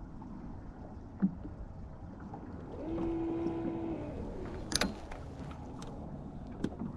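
Low wind and water rumble aboard a small fishing boat. About three seconds in, a steady hum lasts about a second, and a little before five seconds comes a quick cluster of sharp clicks.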